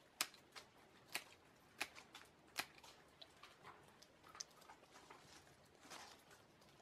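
Hand pruning shears snipping leaves and stem ends off rose cuttings: a series of short, sharp snips about a second apart.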